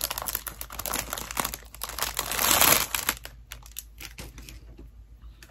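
Packaging crinkling as it is unwrapped by hand, busy and crackly for about three seconds, loudest just before it thins out to a few light clicks.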